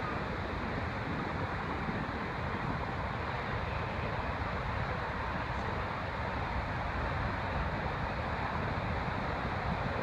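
Large storm surf breaking along the beach in a steady roar of rushing water, with wind buffeting the microphone.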